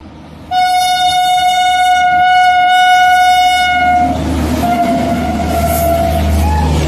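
WAP-7 electric locomotive's horn sounding one long blast about half a second in, its pitch dropping as the locomotive passes about four seconds in. It is followed by the deep rumble of the passenger coaches running past at speed.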